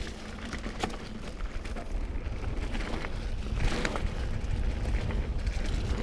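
Mountain bike descending a dirt trail: a steady low rumble of tyres and frame over the ground with wind on the microphone, broken by occasional sharper rattles over bumps. The camera gimbal's vibrating buzz runs through it.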